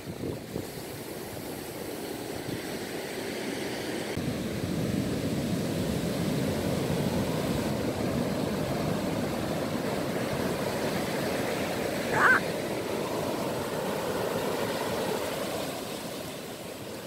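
Ocean surf breaking and washing up the beach, a steady rushing noise with wind on the microphone, building over the first few seconds. A brief high chirp sounds about twelve seconds in.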